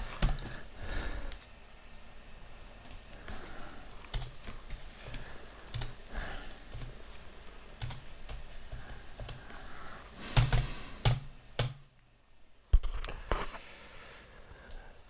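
Typing on a computer keyboard: irregular key clicks, with a louder flurry of keystrokes about ten seconds in and a single sharp click shortly after.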